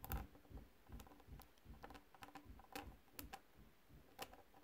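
Faint, irregular light taps, about two a second: the tip of a plastic pen tapping the pointed end of a walnut shell to chip a small piece off.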